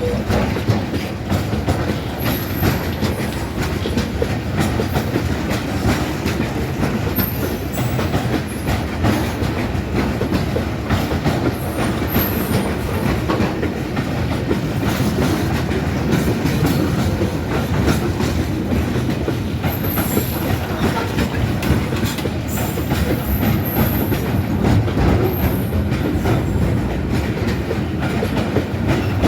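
Goods train's wagons rolling along the track, wheels clacking steadily over the rail joints, with scattered brief high-pitched wheel squeals.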